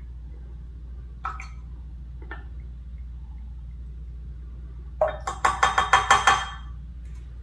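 A spoon rattling quickly against a glass measuring cup, a fast run of ringing clinks for about a second and a half, as oil is mixed into a soy sauce marinade. Before it come two single light clinks about a second apart.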